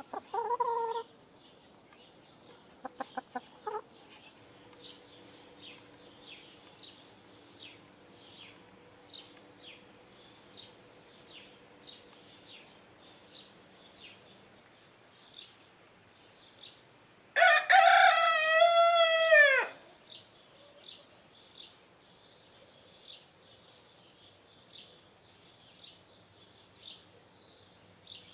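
A rooster crows once, a loud crow of about two seconds a little past the middle, dropping in pitch at the end. Near the start a hen gives a short cluck, and short high chirps of a small bird repeat in the background.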